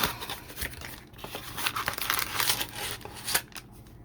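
Trading-card blaster box packaging being torn open and handled: irregular tearing and crinkling bursts with small sharp clicks.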